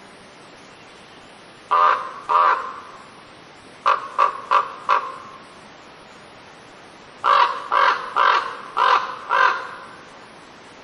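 Raven calling: eleven short, harsh caws in three bouts, two about two seconds in, then four quicker ones, then five, over a steady background hiss.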